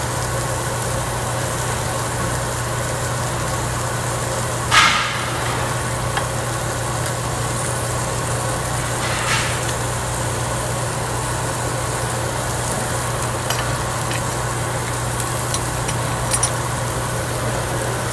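Steady hum of an overhead grill exhaust hood over meat sizzling on a tabletop barbecue grill. Two short, louder hissing bursts come about 5 and 9 seconds in, and a few light clicks come near the end.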